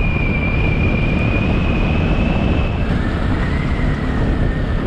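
Wind rushing over the microphone of a Bajaj Pulsar motorcycle riding at road speed, over the bike's running engine. A thin, high, steady whine sits above it and drops a little in pitch about three seconds in.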